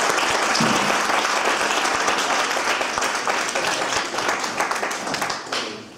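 Audience applauding: dense clapping that tapers off near the end.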